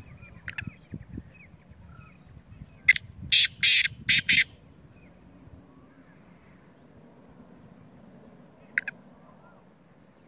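Black francolin calling: a quick series of five loud, harsh, grating notes about three seconds in, with a single short note near the end.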